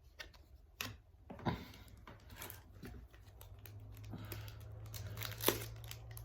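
Trading cards and foil packs being handled on a table: scattered light clicks and soft rustling, with one sharper click about five and a half seconds in.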